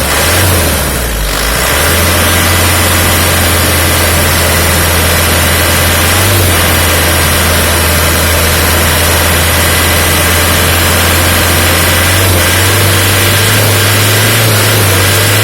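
Isuzu Panther's 2.5-litre four-cylinder turbo diesel idling steadily, just restarted after its EGR valve and intake manifold were cleaned.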